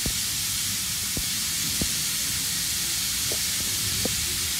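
Steady hiss from a steam locomotive running slowly into a station in wet weather, with a few soft knocks now and then.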